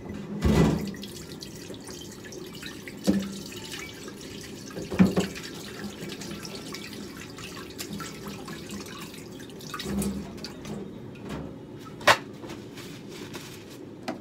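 Water running from a kitchen tap into a sink, with about five sharp knocks and clunks from things being handled in it.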